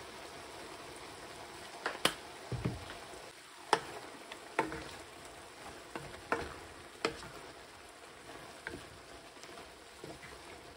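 Shrimp and asparagus sizzling steadily in a frying pan, with a scattering of sharp clicks and knocks as the food is seasoned and stirred, mostly in the first seven seconds.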